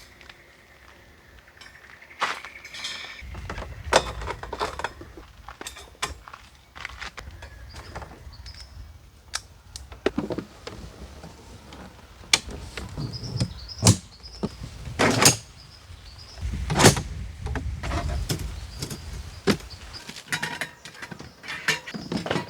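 Camping gear being handled: an irregular run of clicks, knocks and rustles, with a few sharper knocks in the second half.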